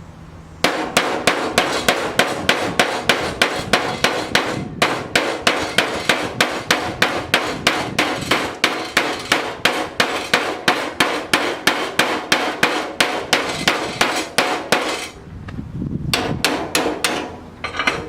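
Hammer striking sheet-steel body panel to shape it, a steady run of about four light blows a second with a metallic ring. There is a short break about five seconds in, the blows stop near fifteen seconds, and a few more come near the end.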